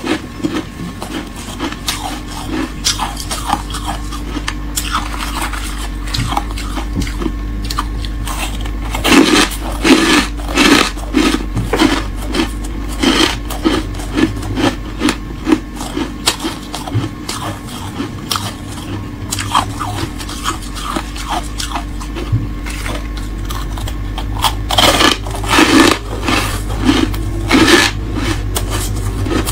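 Freezer frost being crunched and chewed in the mouth, close to the microphone: many crisp crunches in irregular runs, loudest in two bursts, one about a third of the way in and one near the end.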